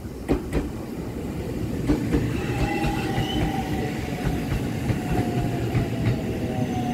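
JR Central 313 series electric train pulling in along the platform: a rumble growing louder with a few wheel clacks over rail joints in the first two seconds. From about two seconds in, the electric motors' whine rises above it and slowly falls in pitch as the train slows.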